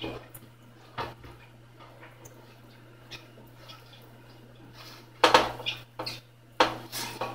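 Pastry brush scraping and dabbing oil across a round stainless steel baking tray, with occasional light clicks, then a run of louder knocks and scrapes of the metal tray from about five seconds in.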